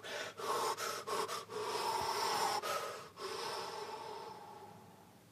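A man imitating the sound of the sea surf with his mouth: several breathy whooshing swells with short breaks between them, the last one dying away about four and a half seconds in.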